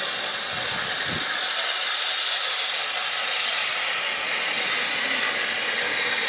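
Southern Railway Q class 0-6-0 steam locomotive No. 30541 moving slowly, with a steady hiss of steam and no clear exhaust beat.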